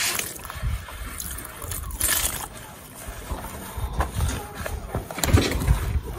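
Water poured from a plastic bottle onto dry wheat bran in a plastic basin at the start, then a hand mixing and squeezing the wet bran against the basin in irregular strokes.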